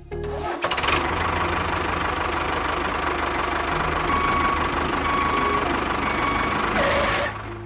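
A small engine running steadily with a rapid, even knocking beat. It starts just after the beginning and cuts off abruptly near the end.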